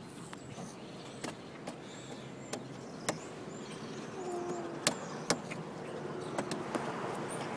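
Outdoor traffic noise, growing slightly louder toward the end, with several sharp clicks from a phone being handled.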